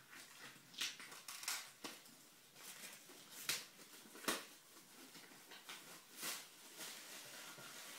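Handling noises from unpacking a boxed book set: rustling and a series of light knocks and taps, the sharpest about three and a half and four and a quarter seconds in.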